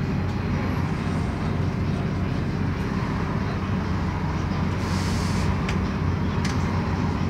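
Scania CN270UB city bus's diesel engine idling steadily while the bus stands, heard from inside the passenger cabin. A short hiss about five seconds in.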